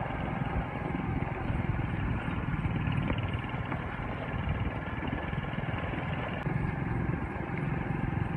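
Motorcycle ride: wind rushing over the phone's microphone, with the motorcycle's engine running steadily underneath.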